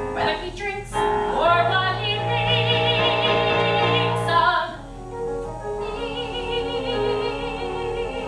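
Woman singing in an operatic style with piano accompaniment: a long, loud held note with wide vibrato, then after a short dip a softer wavering line.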